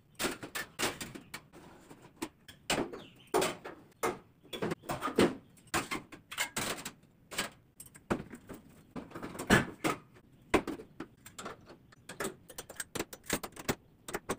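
Stainless steel plates and bowls clanking and rattling against a stainless steel wall-mounted dish rack as they are set into it one after another, in many irregular sharp clanks, some briefly ringing.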